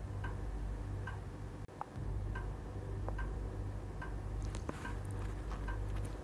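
Faint, regular ticking, about two ticks a second, over a low steady hum.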